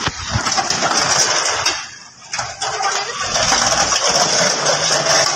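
Car engine running as an SUV with a wheel clamp locked on its front wheel is driven, with steady high-pitched noise over it. There is a short knock at the start and a brief drop in level about two seconds in.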